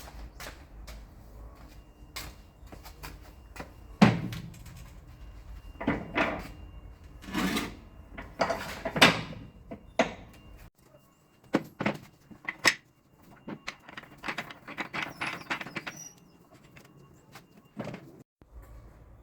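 A string of irregular knocks, clanks and scrapes from tools and parts being handled during repair work, with a quick run of clicks near the end. A low background hum cuts out suddenly partway through.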